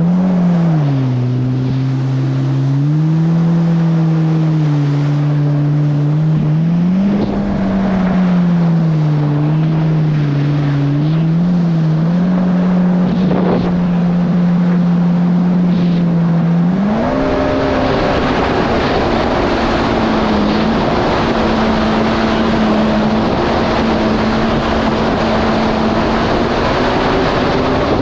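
Yamaha GP1800R SVHO jet ski's supercharged 1.8-litre four-cylinder engine running under way, its pitch rising and falling several times with the throttle. About two-thirds of the way in it settles into a steady higher-speed run, with a loud rushing noise of wind and water over it.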